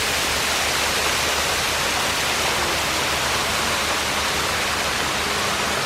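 Lugard Falls waterfall: a steady, loud rush of falling water.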